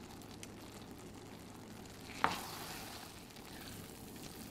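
Risotto simmering with a faint, steady sizzle in a stainless steel pot while a wooden spoon stirs through it. There is one sharp knock a little past two seconds in.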